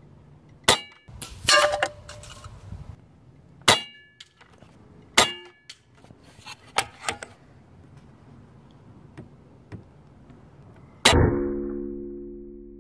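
Kral Puncher Armour .22 PCP air rifle firing at tin cans. It gives a series of sharp cracks, with metallic pings and clangs as pellets strike the cans. About eleven seconds in, one loud clang rings on low and fades out over a couple of seconds.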